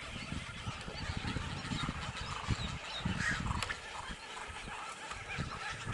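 Wild birds calling in short, scattered calls, several close together about halfway through, over an uneven low rumble.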